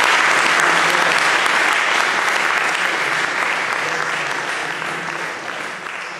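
Audience applauding at the end of a talk, the clapping slowly dying away.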